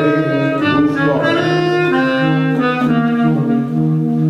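Two saxophones playing jazz together. A run of changing notes gives way, about halfway through, to two long held notes sounding at once.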